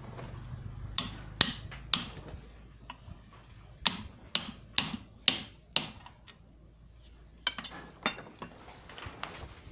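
Hammer blows on steel, tapping the parts of a GAZ-53 steering tie rod end into their seat: three strikes about a second in, a faster run of five around the middle, then three more near the end.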